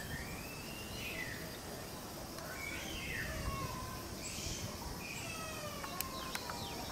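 Strong wind rumbling on the microphone, with several long calls over it that glide up and down in pitch and a couple of sharp ticks near the end.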